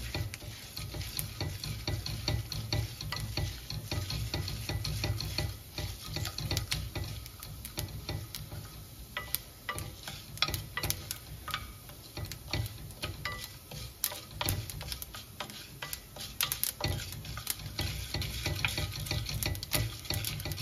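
A spoon stirring and scraping mustard seeds, urad dal and chana dal around a stainless steel frying pan as they roast in a little hot oil. The oil sizzles steadily, with many scattered clicks throughout.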